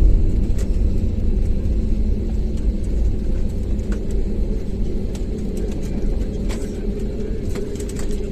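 Airbus A320-family airliner rolling out on the runway after landing, heard inside the cabin: a loud, steady deep rumble of engines and wheels, with a few faint light clicks.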